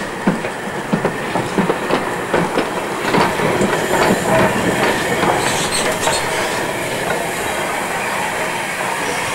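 BR Standard Class 4 2-6-4 tank steam locomotive rolling slowly past, with irregular clanks and knocks from its wheels and motion over the rail joints through the first half. It settles into a steadier hiss and rumble in the second half.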